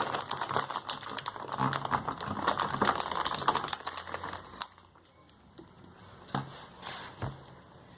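Rapid clicking and scraping of a spoon stirring slime mixture in a bowl, dense for about four and a half seconds, then only a few scattered clicks.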